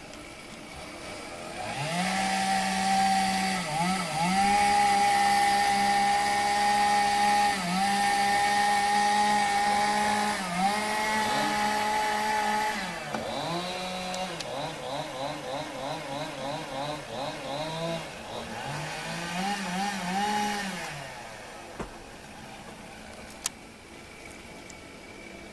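Chainsaw running at high revs with several brief dips. About halfway through, its revs drop and waver rapidly, then rise for a second high run and fall away near the end. A couple of sharp clicks follow.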